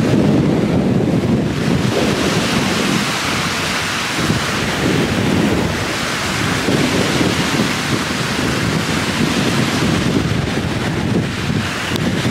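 Strong wind buffeting the microphone in a continuous low rumble, over choppy lake waves breaking on a stony shore.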